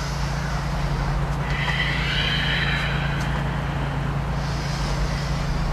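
A person breathing slowly in and out while holding a yoga stretch, two soft breaths heard over a steady low background hum.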